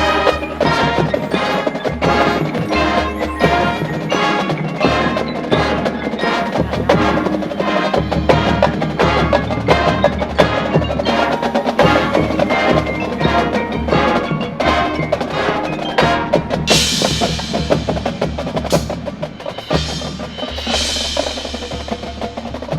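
High school marching band playing, with its percussion section and front-ensemble mallet instruments driving a quick steady rhythm. Two bright high washes ring out about 17 and 21 seconds in.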